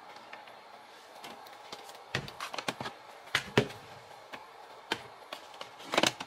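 A wooden kitchen cabinet door opening, then plastic supplement bottles being taken off the shelf: a scatter of light clicks and knocks as bottles tap each other and the shelf, loudest just before the end.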